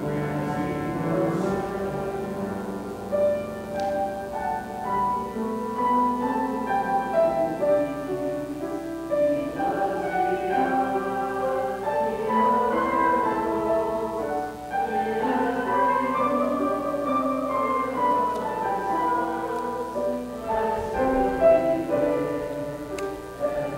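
Slow instrumental music led by piano, with held notes overlapping one another.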